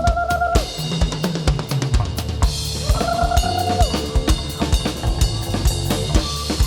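Live band playing, the drum kit to the fore with bass drum, snare and cymbals over a steady bass line, and a held lead note at the start and again about three seconds in.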